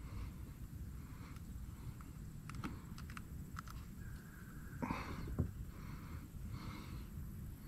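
A person breathing close to the microphone, short breaths about once a second. A few light clicks and a couple of soft knocks about five seconds in come from hands handling a small crappie and its hook.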